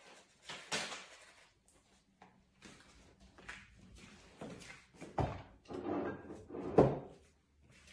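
Kitchen handling sounds: a series of knocks and thumps, like cupboard doors, drawers and containers being moved about, with the loudest thump near the end.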